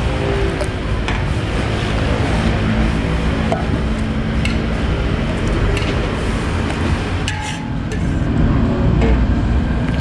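A ladle stirring and clinking against a large aluminium wok of simmering fermented soybean relish, with a few sharp clicks, over a steady low rumble. Music plays underneath.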